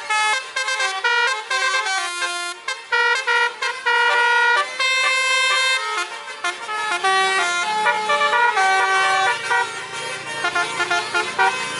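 Bus 'telolet' musical air horn playing a rapid melody: a string of sustained horn notes that step from pitch to pitch every fraction of a second. A low rumble joins underneath about halfway through.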